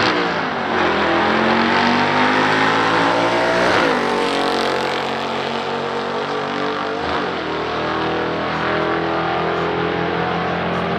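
A 1965 Chevrolet Corvette's 396 L78 V8 and a 1978 Camaro Z28's 350 V8 accelerating hard side by side down a drag strip at full throttle. The engine notes climb in pitch and fall back at gear changes about four and seven seconds in. The Corvette's 1-2 shift sounded like it had some issues.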